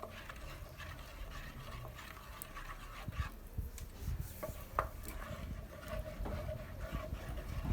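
A spoon stirring thick groundnut paste in a cooking pot, with soft scrapes and occasional light clicks against the pot.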